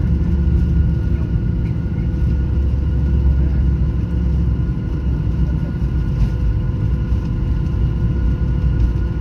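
A Boeing 737-800's CFM56 jet engine and the airframe rolling on the runway, heard from inside the passenger cabin as a steady low rumble with a faint steady whine on top.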